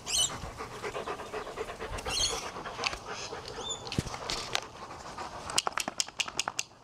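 Dogs panting hard while playing, with several short high chirping calls and a quick run of sharp clicks near the end.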